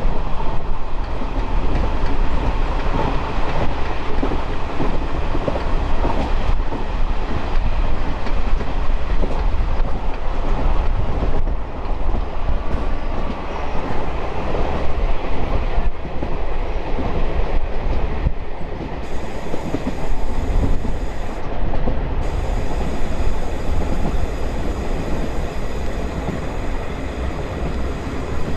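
Diesel-electric multiple unit (DEMU) passenger train running, heard from on board: a steady loud rumble of wheels on the rails and running gear, easing slightly about two-thirds of the way through.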